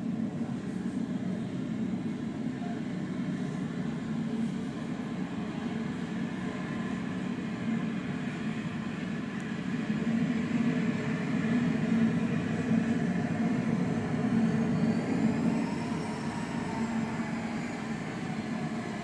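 The General Electric CF34-10E turbofans of an Embraer E190 at taxi power: a steady jet rumble with a faint turbine whine. It grows louder about halfway through as the jet turns toward the listener, and near the end a high whine rises and falls slightly.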